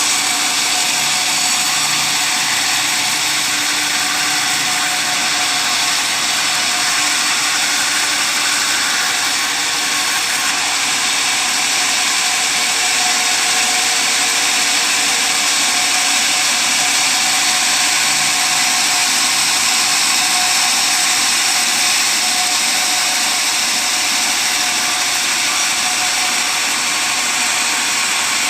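Sawmill running steadily with a loud, even mechanical noise.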